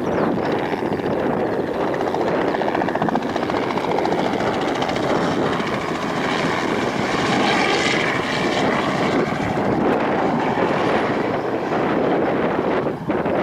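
Small crop-dusting helicopter flying low, its rotor and engine noise steady and loud with a pitch that shifts in the middle as it passes, mixed with wind on the microphone.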